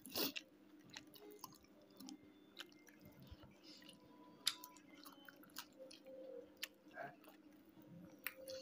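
Faint chewing with scattered small wet mouth clicks and smacks of a person eating by hand.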